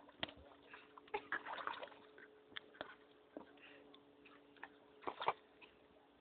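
Faint scattered clicks and small knocks with light water sloshing, over a faint steady hum.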